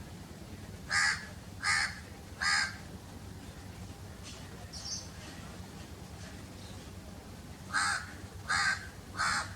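A crow cawing in two runs of three caws, the first about a second in and the second near the end, with a faint call in between. A steady low rumble runs underneath.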